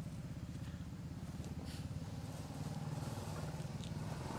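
A vehicle engine running steadily with a fast, even pulse, growing a little louder near the end.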